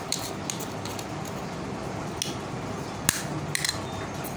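Small plastic highlighter compacts handled in the hands, giving a few sharp clicks and taps, the loudest about three seconds in, over steady background noise.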